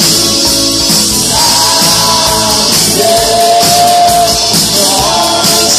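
Live rock band playing with a singer out front, electric guitar and drums; about halfway through, the singer holds one long note.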